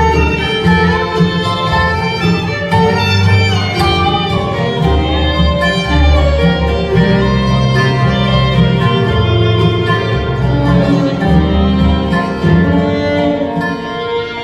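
Bluegrass band playing without vocals, the fiddle leading over acoustic guitar, upright bass, mandolin, dobro and banjo, with the bass notes prominent underneath.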